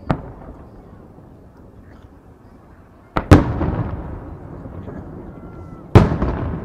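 Aerial firework shells bursting: a sharp bang just after the start, a loud double bang about three seconds in and another loud bang near the end, the louder ones trailing off in a long rolling echo.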